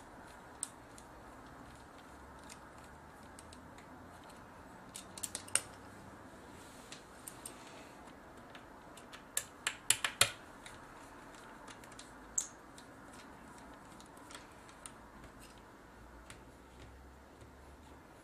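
Small scattered clicks and taps of a screwdriver and screws as the last screws come out of a camcorder's bottom panel. Short clusters of sharper clicks come about five seconds in and again around ten seconds.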